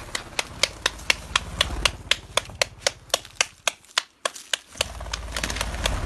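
Chukar partridges calling, a rapid even run of short clucks at about four a second, with a break of about a second a little past the middle.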